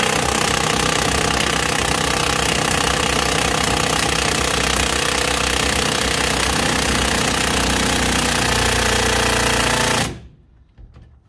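Impact wrench hammering continuously on a corroded strut-to-hub bolt, cutting off about ten seconds in. The bolt does not come loose: it is seized with corrosion.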